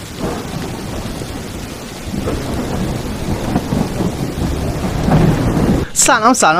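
Heavy rain pouring steadily, with low rolling thunder underneath that grows louder over the second half.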